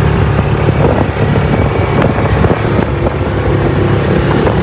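Side-by-side off-road vehicle's engine running steadily under way over a dirt track, with scattered knocks and rattles.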